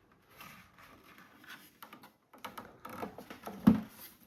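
Handling noise from a router and its power cable being picked up and held: irregular rustling and light taps, with one sharper knock about three and a half seconds in.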